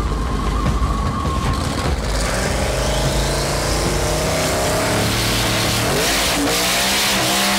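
Twin-turbo LS V8 of an OBS Chevrolet Silverado drag truck revving, with its pitch climbing and falling several times over a dense rushing hiss.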